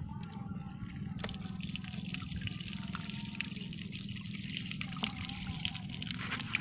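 Water trickling and dripping, with many small ticks and splashes, over a steady low hum.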